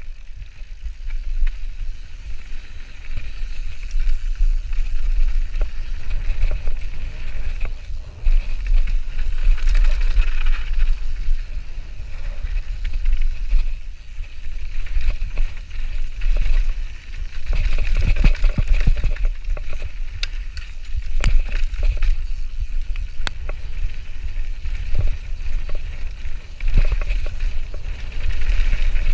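Mountain bike ridden fast down a gravel downhill trail: steady wind buffeting on the microphone, tyres on loose gravel, and the bike clattering and knocking over bumps, busiest a little past halfway.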